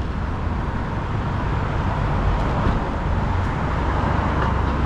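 Road traffic passing: a steady rush of car engine and tyre noise.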